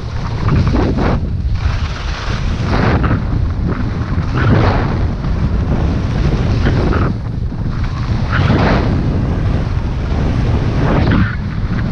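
Heavy wind buffeting the microphone of a camera worn while skiing fast downhill, a constant low rumble. Over it, a hissing scrape of snow swells about every one to two seconds as each turn is made.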